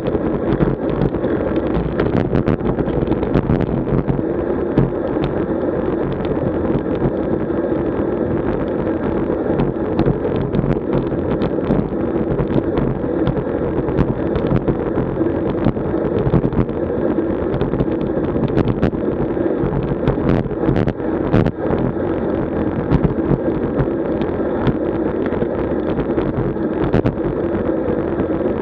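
Steady wind rush on the microphone and rolling road noise from a road bike ride, with scattered short clicks and knocks from bumps in the road.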